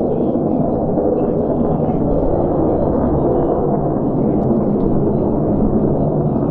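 Jet noise from an RF-4E Phantom II's two General Electric J79 turbojets in flight: a steady, deep rumble without breaks.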